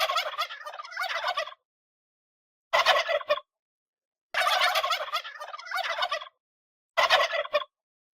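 Turkey gobbling: four gobbles, a long one of about a second and a half and a short one, then the same long-and-short pair again.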